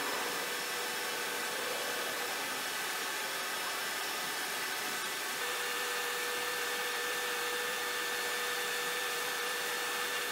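Steady rushing air from a motor-driven fan, with a faint even hum under it.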